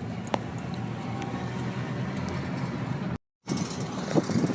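Steady sound of a motor vehicle running close by, with one sharp click early on; the audio cuts out completely for a moment a little after three seconds in, and irregular knocks follow.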